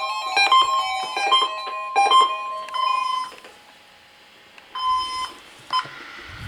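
Several weather alert radios sounding their electronic alert beeps at once for the required weekly test, a jumble of overlapping high tones that stops about three seconds in. One more short beep comes near five seconds, followed by a click.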